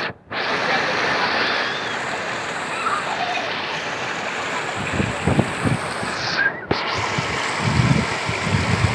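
River water rushing over shallow rocky rapids in a steady hiss of white water, with low gusts of wind rumbling on the microphone in the second half.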